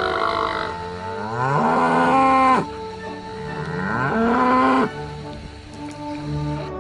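Cow mooing twice, each call rising in pitch, then held and breaking off abruptly.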